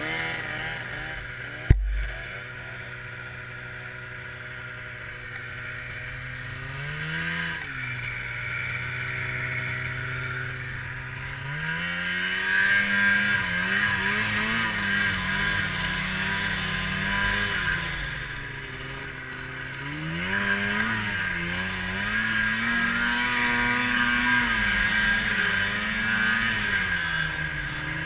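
Arctic Cat 700 two-stroke snowmobile engine idling, with a single sharp knock about two seconds in and a quick throttle blip a few seconds later; then it revs up and pulls away through deep powder, the engine pitch rising and falling with the throttle over a hiss of snow and wind.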